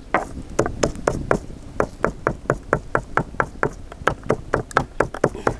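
Round hand-held stone pounding chopped ají chili peppers in a stone mortar: quick, steady stone-on-stone knocks, about four a second, as the peppers are crushed into a sauce.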